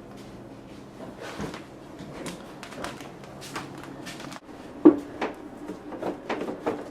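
Scattered light knocks and clatters of objects being handled, with one sharper knock about five seconds in. A low steady hum underneath cuts out a little past the middle.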